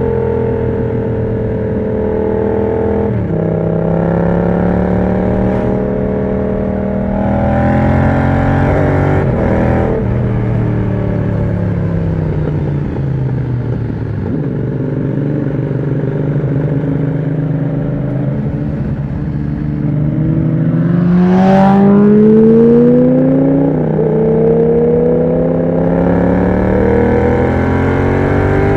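Yamaha MT-07's parallel-twin engine through an aftermarket exhaust with the dB killer removed, under way: the engine note sinks over long stretches as the throttle eases off, then rises in a strong pull about three-quarters through, with a brief dip partway up.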